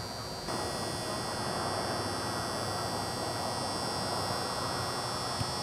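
Steady outdoor background noise, an even hiss with a low rumble and no distinct events, stepping up in level about half a second in.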